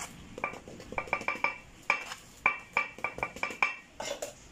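Metal spoon clinking and tapping against a ceramic plate while spreading ghee over naan: about a dozen light clinks in quick runs, each ringing briefly, with a short scrape near the end.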